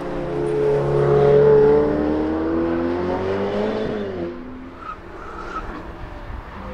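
Ferrari 812 GTS's V12 accelerating hard past, its engine note climbing in pitch and loudness, then dropping away about four seconds in as the car leaves.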